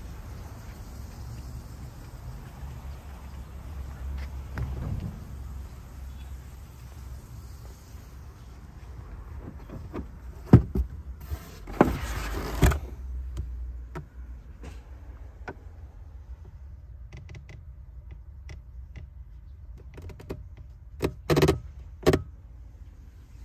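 Knocks and clatter of an Acura sedan's trunk floor cover and foam storage tray being lifted and moved: a few sharp knocks about halfway through, light ticks after, and a cluster of louder knocks near the end. A steady low rumble underlies the first half.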